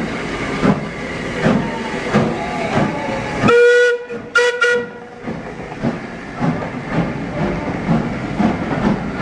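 Metropolitan Railway No. 1, an E class 0-4-4 tank steam locomotive, pulling away slowly, its exhaust chuffing about every three-quarters of a second. About three and a half seconds in, its steam whistle sounds once for about half a second and then twice more in short toots. The chuffing then goes on more quietly as the carriages roll past.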